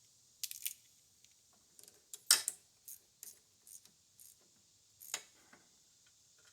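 Scattered metal clicks and clinks of a socket wrench with an extension being fitted and worked on a bolt of the tractor's hydraulic valve. The sharpest clink comes about two seconds in.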